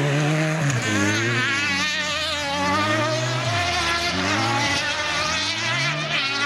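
Single-seater autocross buggy's engine racing on a dirt track, its pitch rising and falling several times as the driver accelerates, shifts and backs off for the turns.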